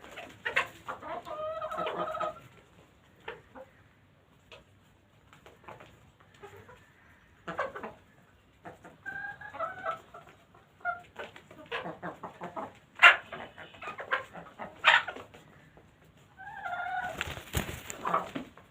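Chickens pecking crunchy feed: many short sharp clicks and taps, with three drawn-out calls along the way.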